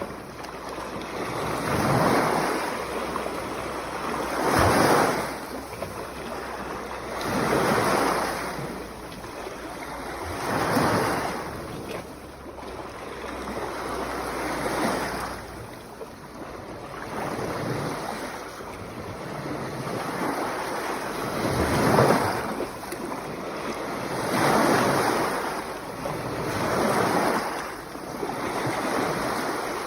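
Sea waves washing onto the shore, one swell of surf every two to three seconds. A low wind rumble on the microphone stops about halfway through.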